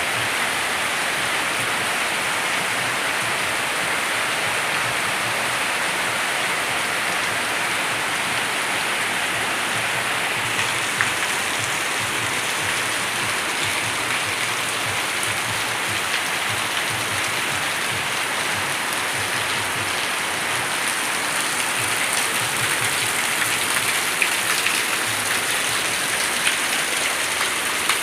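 Steady heavy rain falling and pattering on surfaces, with a few louder individual drops in the second half.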